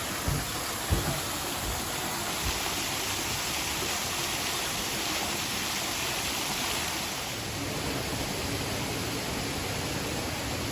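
Steady rushing of flowing water, with a few light knocks in the first second.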